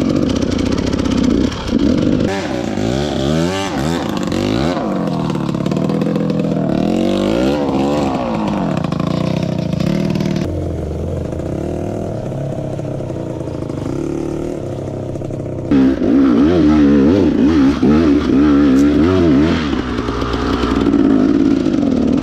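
Dirt bike engine being ridden, its revs rising and falling over and over with the throttle. About ten seconds in it drops to low revs for several seconds, then picks up again.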